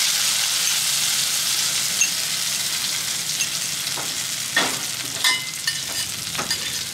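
Chopped chilies sizzling in hot oil in a steel wok, a steady hiss that slowly eases. From about four seconds in, a metal wok spatula scrapes and knocks against the wok a few times as the chilies are stirred.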